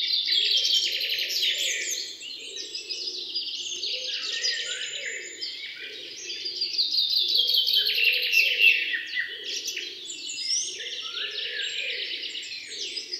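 A chorus of songbirds, many high chirps and trills overlapping at once, with a lower call repeating about once a second underneath.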